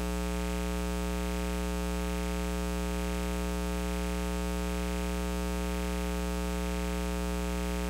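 Steady electrical mains hum, a low buzz with many even overtones over a faint hiss, holding constant throughout.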